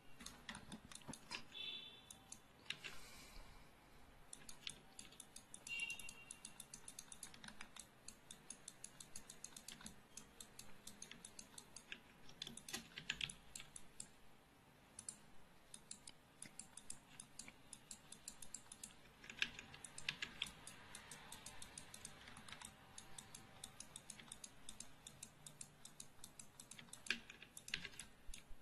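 Faint, quick clicking and tapping of a computer keyboard and mouse, several clicks a second with short pauses, as hair curves are edited in 3D software.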